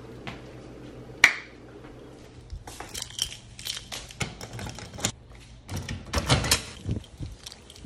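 A single sharp click about a second in, then keys on a lanyard jangling and clicking against a metal cluster mailbox as its small door is unlocked and opened: a quick run of metallic clicks and rattles.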